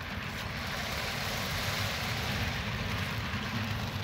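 HO-scale model freight cars rolling past on the track: a steady rolling rumble of wheels on rail that swells as the cars go by and eases near the end as the last car passes.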